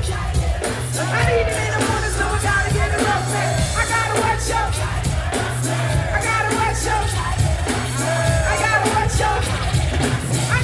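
Live hip-hop music over a concert sound system: a heavy repeating bass beat with hi-hats, and a sung vocal line with gliding notes on top.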